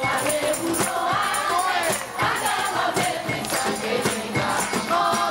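Background music: a group of voices singing a Christmas carol, with tambourine and jingling percussion keeping a steady beat.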